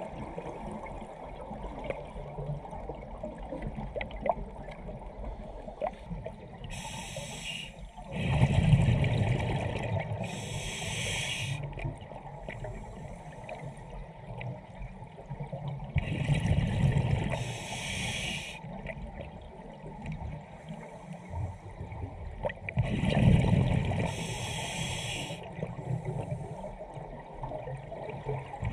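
Scuba diver breathing through a regulator underwater: hissing inhalations, then a loud rumble of exhaled bubbles, three times over, about every seven or eight seconds.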